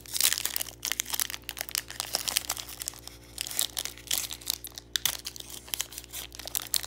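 Foil wrapper of a Pokémon trading card booster pack being torn open by hand: a dense run of sharp crinkles and crackles, loudest right at the start.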